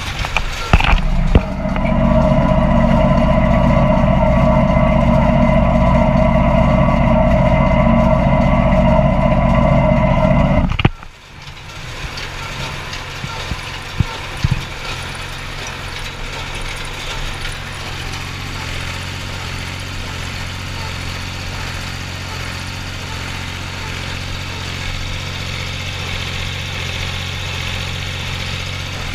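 Tractor engine running steadily while pulling a New Holland small square baler. For about the first eleven seconds it is very loud, with a steady whine over the engine. Then it drops off suddenly to a quieter, steady run with a couple of clicks a few seconds later.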